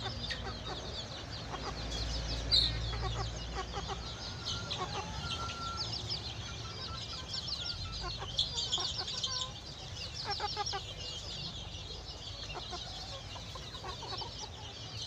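Young chickens clucking softly over a steady chorus of many short, high chirps, with one sharp tap about two and a half seconds in.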